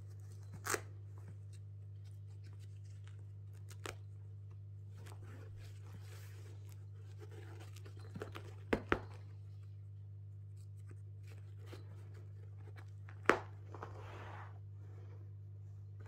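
Cloth quiet book being handled: soft rustling and tearing of fabric pieces pulled loose and pressed back on, with a few sharp clicks, the loudest about nine and thirteen seconds in. A low steady hum runs underneath.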